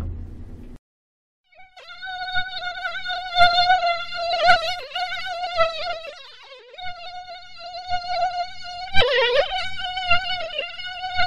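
The fading end of a loud thump, a moment of silence, then a mosquito's high, wavering whine from about two seconds in. Its pitch sags lower around the middle and makes a brief swoop about nine seconds in, as the insect flies close by.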